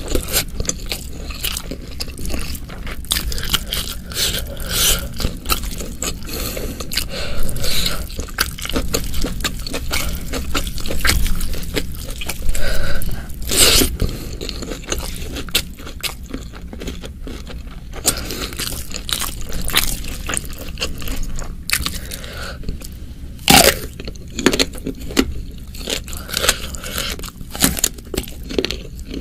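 Close-miked eating by hand of spicy beef oseng mercon with rice: steady chewing and crunching with many sharp wet mouth clicks. The loudest crunches come about fourteen seconds in and again about twenty-four seconds in.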